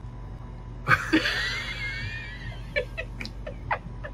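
A short burst of music with a wavering high line about a second in, followed by a few scattered clicks, over a steady low hum.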